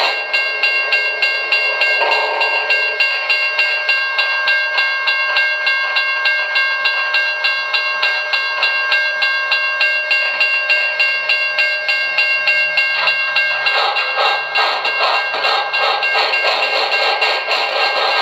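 QSI Maxx Traxx small-steam sound system playing a steam locomotive's exhaust chuff through a speaker: an even rhythm of about four chuffs a second, with a steady high tone over it.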